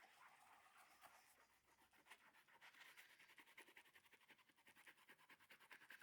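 Faint, rapid scratching strokes, several a second, from a hand tool working across a linoleum block or paper.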